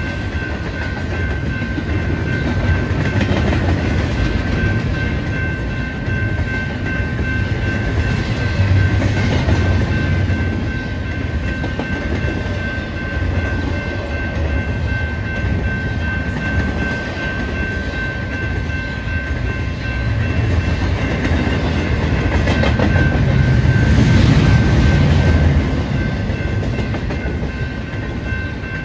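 BNSF double-stack intermodal freight train passing over a grade crossing: the steady rumble of the wagons and the clickety-clack of wheels over the rails, with a thin steady high tone over it. The rumble grows louder for a few seconds about three-quarters of the way through.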